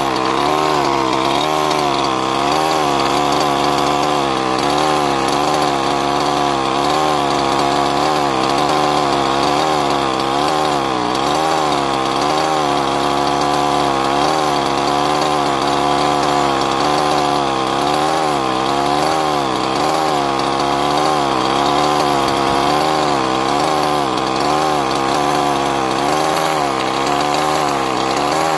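Losi MTXL's 23cc two-stroke gas engine idling steadily during break-in, its speed wavering slightly up and down every second or two, with a steady hiss underneath.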